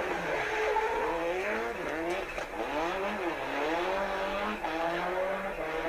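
Rally car engine revving, its pitch climbing and dropping several times as it goes through the gears, over steady tyre and road noise.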